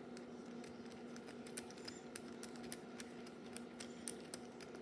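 Faint, irregular small clicks and ticks of fingers handling a plastic fidget spinner and its metal cap while screwing it back onto the top of a pen.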